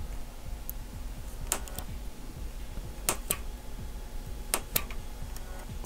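A cutter knife blade pressing through the gates of a brass photo-etched fret onto a thick plastic sheet, each cut giving a sharp click. There are a few clicks, mostly in quick pairs.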